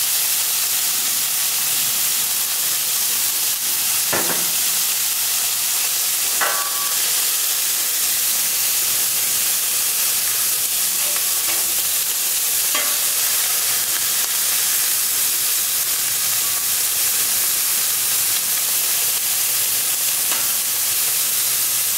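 Diced ham sizzling steadily in canola oil on a hot steel flat-top griddle, with a metal spatula scraping across the griddle surface a few times as it spreads and turns the ham.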